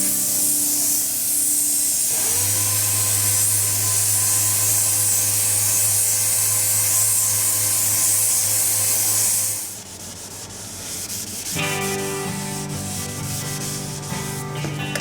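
Sanding on a car body panel: a steady, hissing scrub that stops about two-thirds of the way through. Background music plays underneath.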